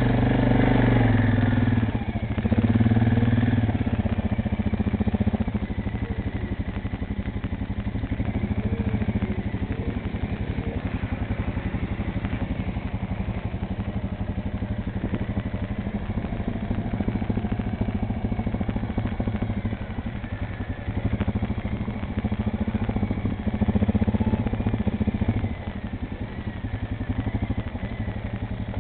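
ATV engine running at low speed with a steady, rapid firing pulse, growing louder for a couple of short stretches as it picks up.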